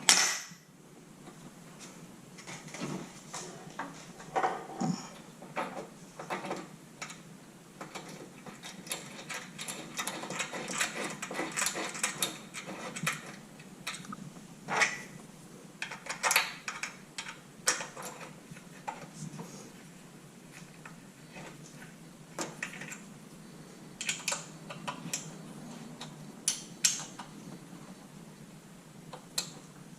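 Light metallic clicks and clinks of hand tools and bolt hardware being worked on a roof-rack light-bar bracket, with a sharp knock at the start and a denser run of quick clicks near the middle.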